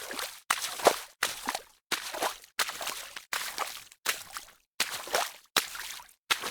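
Fast footsteps wading through shallow water, each step a sharp splash and slosh, about one every 0.7 seconds in a steady rhythm.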